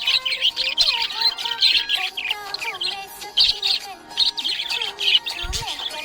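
Budgerigar chirping and warbling, a continuous stream of rapid, overlapping chirps and twittering.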